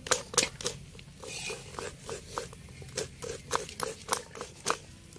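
Metal slotted spoon scraping and knocking against a stainless-steel bowl, about three strokes a second, as cooked dough is scooped from one bowl to another.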